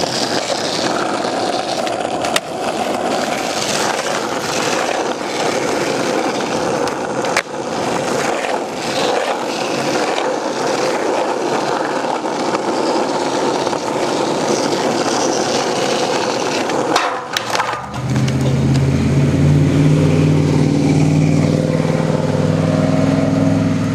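Skateboard wheels rolling over rough asphalt, with a few sharp clacks from the board. About two-thirds of the way in the rolling stops and a steady low engine-like hum takes over, fading near the end.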